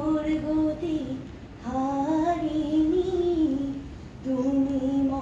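A woman singing solo and unaccompanied, holding long notes with gentle slides in pitch, and pausing for breath twice between phrases.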